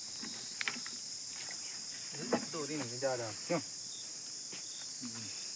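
Steady, unbroken high-pitched chorus of insects, typical of crickets or cicadas in dense vegetation. A voice speaks briefly in the middle, about two to three and a half seconds in.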